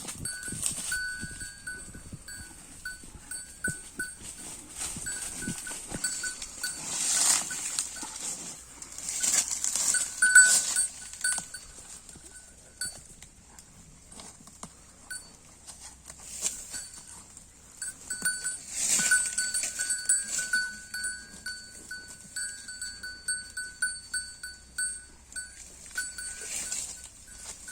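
Holstein Friesian cow grazing: grass torn and chewed in irregular crunching bursts, a few of them louder. A faint high ringing pulses on and off behind it.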